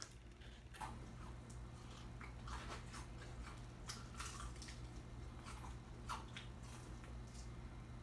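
Close-up mouth sounds of someone biting and chewing a crispy fried chicken wing: irregular crunches and wet chewing clicks, over a steady low hum.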